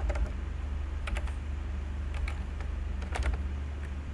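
Computer keyboard keys clicking as code is typed, in short clusters of a few keystrokes about once a second. A steady low hum runs underneath.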